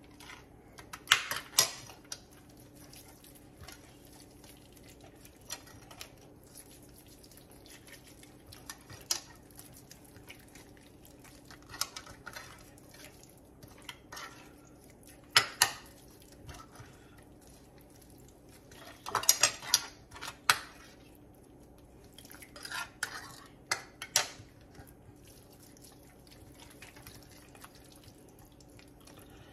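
Scattered clinks and knocks of a metal spoon and the meat against a ceramic plate as a marinade is rubbed by hand into a boneless lamb leg, with a busier run of clinks about two-thirds of the way through.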